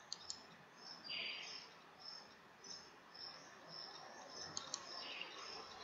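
Faint, high-pitched chirping from a small creature, short chirps repeating about twice a second, with a few soft clicks.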